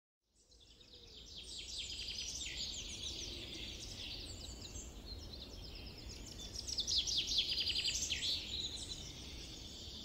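Woodland birdsong from several birds: quick chirps and trills overlapping over a low steady rumble. It fades in just after the start and is busiest about two-thirds of the way through.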